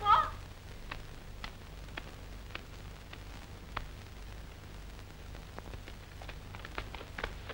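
Steady hiss and low hum of an old film soundtrack, with scattered faint clicks that come more often near the end.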